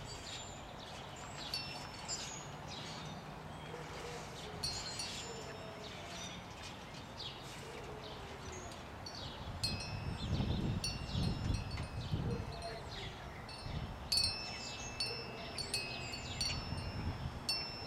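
Wind chimes ringing off and on, several tones struck together and ringing on. A low rumble comes for a couple of seconds about ten seconds in.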